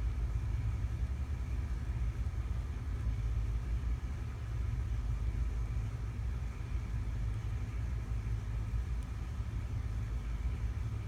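Steady low rumble of background noise, with a faint steady hum higher up.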